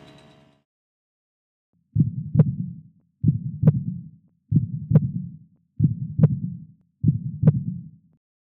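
Heartbeat sound effect: five low double thumps in a lub-dub pattern, the second beat of each pair the stronger, repeating about once every 1.3 seconds from about two seconds in.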